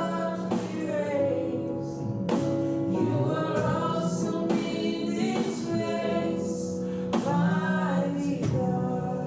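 Live gospel worship music: voices singing long, drawn-out notes over a steady musical accompaniment.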